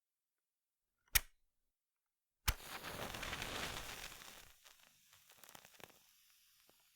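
A wooden match struck on a matchbox: one short sharp scrape about a second in, then a second strike about two and a half seconds in that flares into a hissing, crackling burst. The burst fades over about two seconds into a few faint crackles as the match burns.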